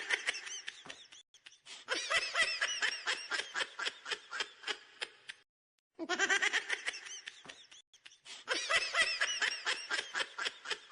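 High-pitched giggling laughter in quick repeated pulses, and the same few seconds of laughing play a second time after a short pause.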